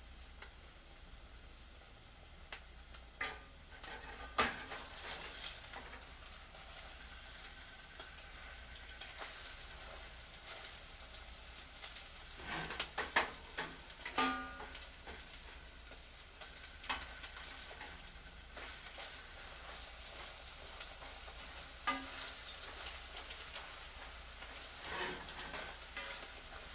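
Kitchen activity: food sizzling in a pan, with scattered clinks and clatter of utensils and dishes, the sharpest about four seconds in and again around thirteen seconds. A low steady hum runs underneath.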